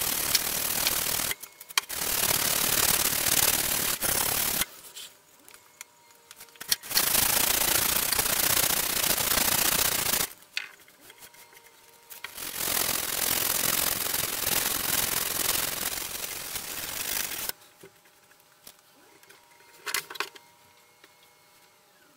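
Hand sanding of a steel nakiri knife blade with sandpaper. Fast back-and-forth rubbing comes in four runs of a few seconds each, with short pauses between them. Then it turns quiet apart from a light knock or two near the end.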